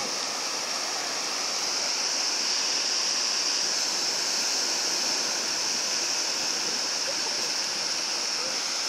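Steady wash of surf breaking on a sandy beach, a continuous hiss of water.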